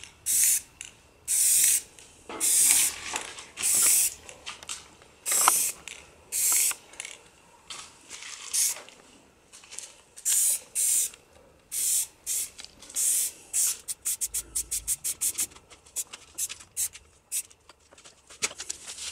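Aerosol can of Rust-Oleum camo spray paint hissing in short bursts, about one a second. Near the end the bursts come much shorter and quicker, several a second.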